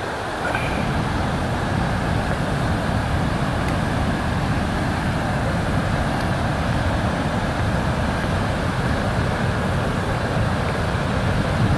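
Steady roar of river water pouring over a long, low concrete weir, a heavy low rush that gets louder about half a second in.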